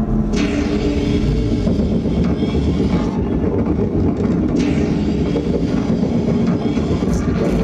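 Soundtrack of a video-mapping projection show played loud over outdoor loudspeakers: a deep continuous rumble with sustained droning tones. Hissing swells of noise come in about half a second in and again about four and a half seconds in.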